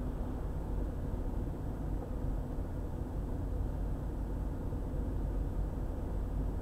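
Car driving at road speed on a highway: a steady low rumble of tyre and engine noise.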